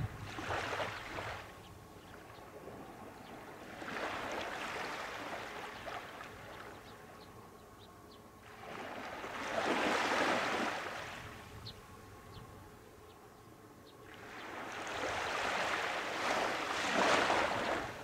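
Small waves breaking on a sandy beach and washing up the shore, a swell of surf about every five seconds, loudest about ten seconds in and near the end.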